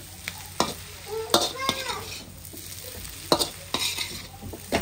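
Chicken noodles being stir-fried in a wok: a soft sizzle under the sharp scrapes and clanks of a metal ladle against the pan, about five of them, as the noodles are tossed.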